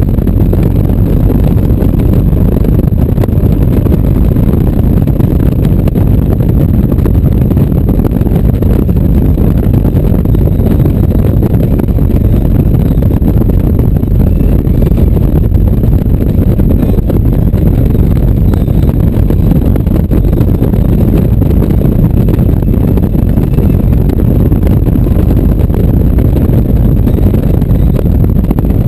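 Touring motorcycle cruising steadily at highway speed: a loud, unbroken low rumble of engine and wind noise on the microphone.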